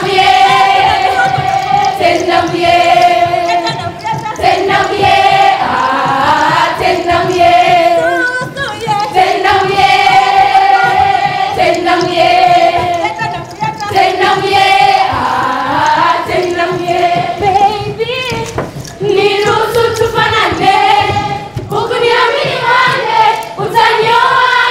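A group of young voices singing a Pokot dance song together in chorus, with long held notes in phrases of a few seconds and the melody stepping up and down between them.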